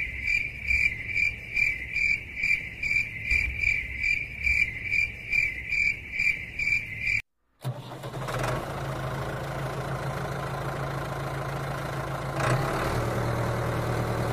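High chirping, repeated about three times a second, stops abruptly about halfway. Then a miniature toy tractor's motor runs with a steady low hum.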